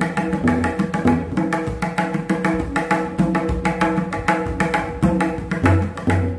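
Tabla played solo in ektaal: a fast, dense run of ringing strokes on the right-hand treble drum (dayan), mixed with deep bass strokes on the left-hand bayan. The bass strokes come louder near the end.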